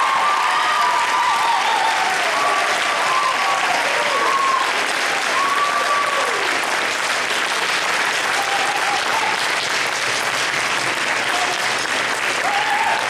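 Audience applauding, with a few whooping cheers in the first few seconds and again near the end.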